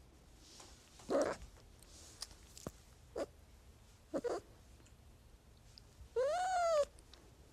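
Domestic cat giving a few short, brief mews, then one clear meow about six seconds in that rises and falls in pitch.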